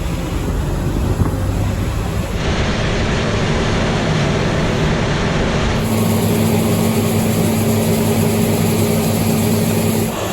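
New Holland combine harvester running steadily under load while harvesting wheat: a steady machine hum with a low drone. The sound changes abruptly twice, about two and a half seconds in and again about six seconds in.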